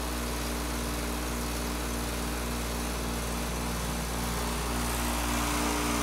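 Outdoor unit of a 2021 Carrier heat pump running through a defrost cycle: a steady compressor hum with an even hiss, growing somewhat louder over the last second or two.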